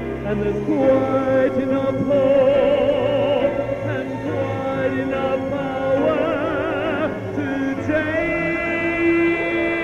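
Slow background music of long held notes sung or played with vibrato, changing pitch every second or two.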